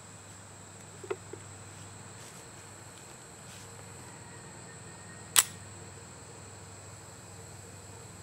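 A single shot from a Ruger Mark IV .22 LR pistol firing a subsonic round: one short, sharp crack about five seconds in. A couple of faint clicks come about a second in, and a steady high insect trill runs underneath.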